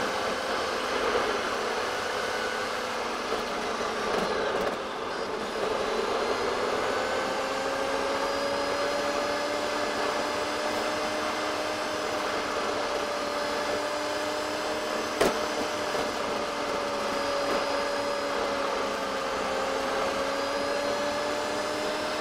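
Car's buzzing drivetrain and road noise from inside the cabin, sped up four times so it becomes a high, steady whine that the owner likens to a supercar; the buzz comes from a gearbox in poor condition. The pitch rises and falls slowly, with one sharp click about fifteen seconds in.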